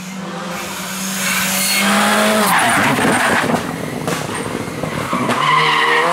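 Rally car engine running at steady high revs, dropping about two and a half seconds in into a rough, crackling stretch with tyre noise as the car brakes and slides through a tarmac corner, then revving up again near the end.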